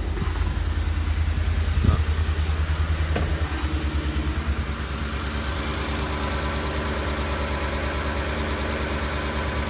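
2010 Ford F-150's V8 engine idling steadily, without the metallic heat-shield rattle now that the rusted clamps have been replaced. A brief sharp click about two seconds in, and the idle eases slightly after about four seconds.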